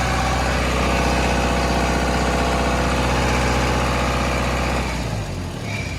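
John Deere diesel engine of a 40 kW generator running steadily, then shut off about five seconds in and winding down.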